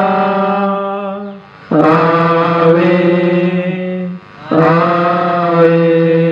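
Prayer chanted on long held notes in three phrases, with short breaks about a second and a half in and just past four seconds.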